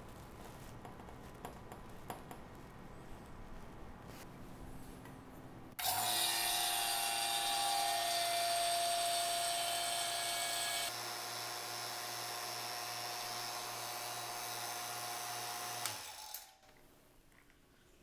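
Kozyvacu electric vacuum pump starting suddenly about six seconds in and running steadily, a motor hum with a higher whine, while it evacuates a refrigerator's sealed refrigerant system through manifold gauges. Its sound steps down a notch about five seconds after starting, and it cuts off about ten seconds after starting. Before it there is only faint handling clicking.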